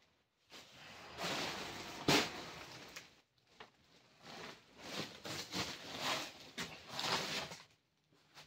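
Irregular rustling and scuffing noises, with a sharp click about two seconds in and a busier stretch of rustles in the second half.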